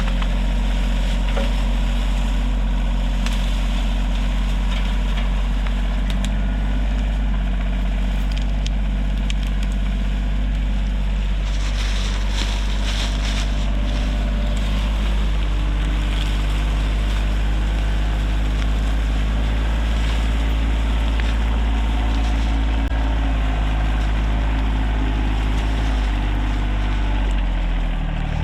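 Rural King RK24 compact tractor's diesel engine running steadily as the tractor is driven downhill. Its engine note changes near the end.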